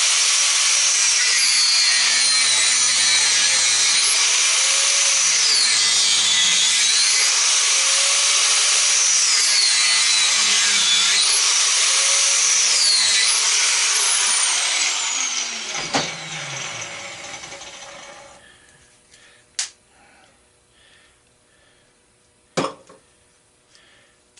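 High-speed power tool cutting, its pitch dipping and recovering three or four times as it bogs down in the cut. It winds down about fifteen seconds in, and a few sharp knocks follow.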